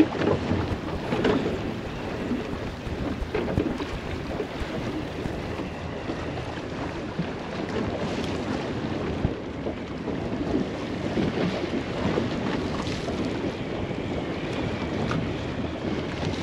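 Wind buffeting the microphone over the wash of choppy sea around a small boat, with occasional splashes and knocks of water against the hull.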